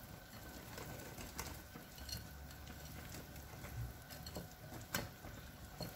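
Wire whisk stirring thick cake batter in a glass bowl: faint, irregular clicks and taps of the wires against the glass, the sharpest about five seconds in.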